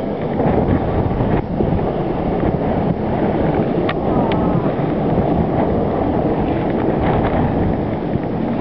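Wind buffeting the camera's microphone: a steady, loud rush of low noise, with a couple of faint clicks about four seconds in.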